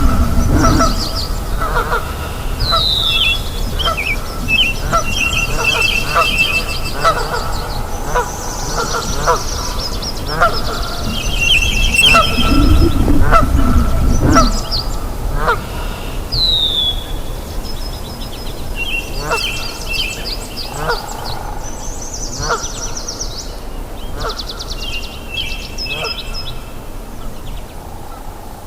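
Chorus of animal calls that the uploader calls nyamang, short honking notes repeated over and over, with birds chirping and giving falling whistles on top. A low rumble swells at the start and again about twelve seconds in.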